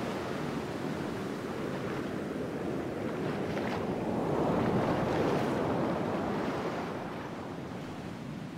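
A steady rushing noise, like surf or wind, that swells louder around the middle and eases off near the end.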